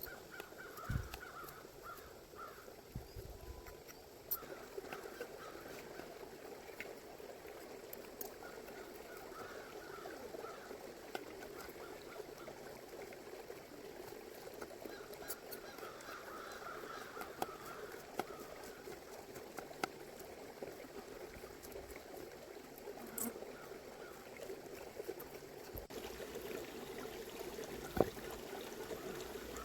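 A river flowing steadily, with scattered small clicks and knocks and a wavering higher-pitched sound that comes and goes several times.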